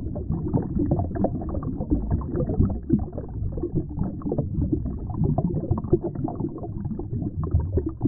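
Fast river current heard underwater: a low churning rumble of rushing, aerated water over rocks, with gurgles and surges that come and go.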